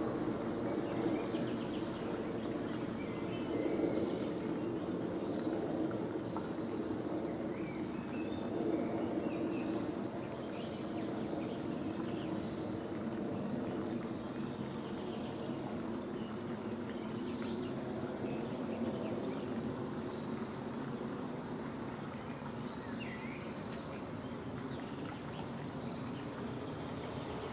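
A steady low mechanical hum with scattered short, high chirps of small songbirds over it.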